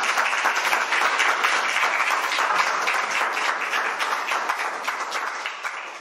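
Audience applauding, many hands clapping at once, gradually fading over the last couple of seconds.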